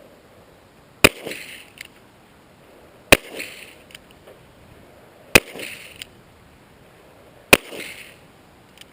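.44 Magnum handgun fired four times, about two seconds apart, each shot followed by a short echo.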